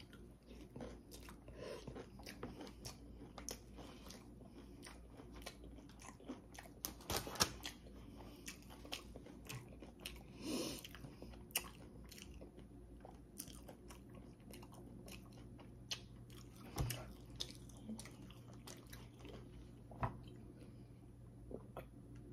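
A person chewing and biting food, with many small wet mouth clicks and occasional crunches, and a few louder bites scattered through.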